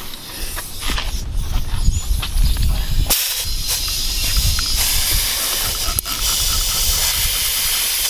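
Hand spray bottle spritzing soapy water onto a plugged lawn mower drive tire, an even hiss from about three seconds in, to check the plug for air leaks. Before that, low rumble and a few handling clicks.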